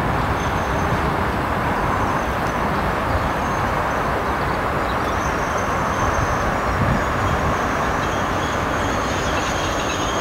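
TEM2 diesel-electric shunting locomotive running steadily as it pulls a train of sand wagons slowly forward, a continuous engine drone with faint thin high tones above it.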